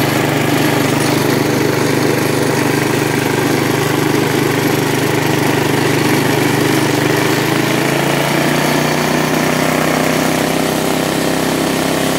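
Small engine of a rebuilt 1969 mini buggy running steadily as the buggy drives along. Its note shifts slightly about eight seconds in.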